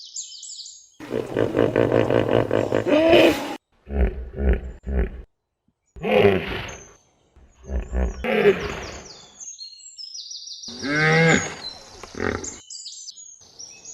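Hippopotamus calling: a series of loud, deep calls of varying length, some long and some short, with short gaps between them. Birds chirp faintly at the start and near the end.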